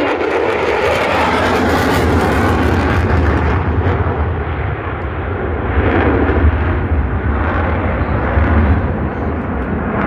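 F-35 fighter jet in flight, a loud continuous jet-engine roar that swells about six seconds in and again near the end.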